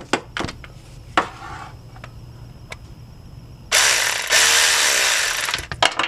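A few sharp metal knocks, then a ratchet wrench clicking rapidly for about two seconds, loosening the timing belt tensioner bolt on a Honda V6.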